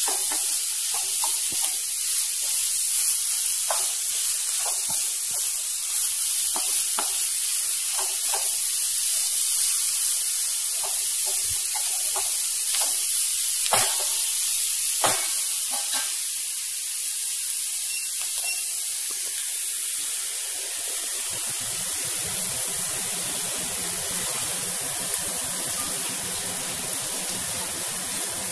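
Grated carrot and onion sizzling as they fry in a non-stick pan, with a wooden spatula scraping and tapping the pan in scattered strokes during the first half; the mix is being cooked down until the carrot is soft. About two thirds of the way in, a steadier, lower rushing noise joins the sizzle.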